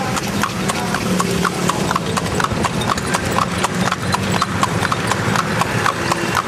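Hooves of a horse pulling a two-wheeled cart clip-clopping steadily on a wet paved street, a quick, even run of sharp strikes.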